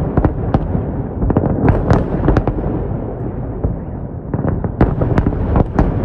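Fireworks display: a quick run of sharp cracks and bangs from bursting shells over a continuous low rumble.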